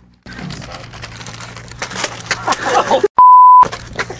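One short, loud, steady electronic bleep about three seconds in, of the kind edited in to censor a word. The other sound drops out around it. Before it there are a few seconds of outdoor background noise with scattered clicks and knocks.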